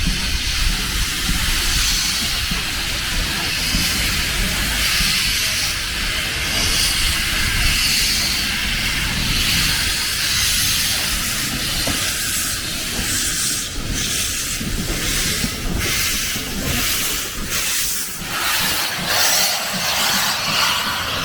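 Steam locomotive hissing loudly over a low rumble, with a run of regular beats in the last several seconds.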